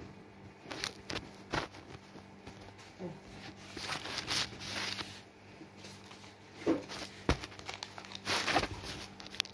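A person biting into and chewing a piece of chocolate-coated alfajor, close to the microphone: soft mouth and chewing noises with scattered small clicks and rustles.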